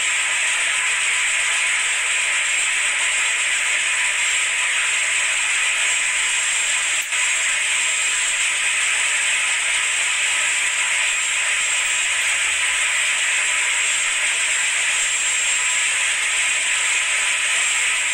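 Loud, steady noise of a ship's engine-room machinery running, heard as an even hiss with a faint steady whine.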